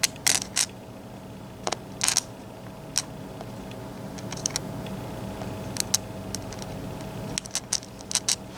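Small metal parts of a disassembled Mul-T-Lock MT5+ lock cylinder being handled, giving scattered light clicks and taps in small clusters, over a faint steady hum.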